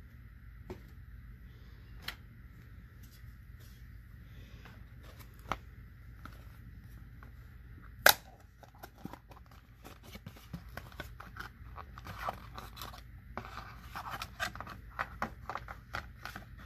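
A cardboard Raspberry Pi 4 box being opened and its packaging handled: scattered light taps, one sharp click about eight seconds in, then a busy run of crinkling, scraping and clicking as the board is taken out. A steady electrical hum sits underneath.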